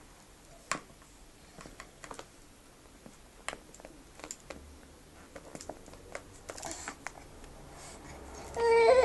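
Scattered light clicks and taps of a baby's plastic rattle and toys being handled against a plastic laundry basket. Near the end a baby's voice comes in, loud and high, with its pitch bending.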